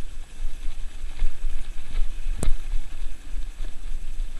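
Dog kart rolling behind a running sled-dog team over rough, muddy ground: a steady rumble of wheels and rattle with wind buffeting the microphone, and one sharp knock about two and a half seconds in.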